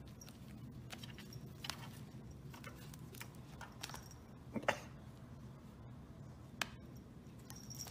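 Faint, scattered light taps and clicks of a cat moving about and playing on a hardwood floor. The loudest tap comes a little after halfway, and a sharper click follows near the end.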